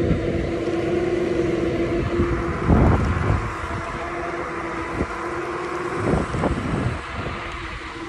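Electric skateboard's geared hub motor whining steadily under load while climbing a hill on 14/36 helical gears, over the rumble of wheels on asphalt and wind. A few knocks, the loudest about three seconds in; the whine drops out near the end.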